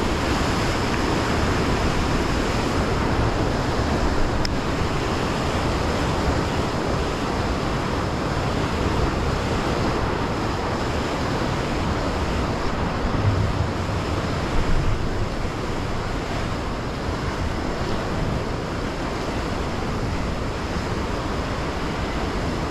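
Heavy sea surf breaking and churning over the rocks, a steady continuous wash, with wind buffeting the microphone.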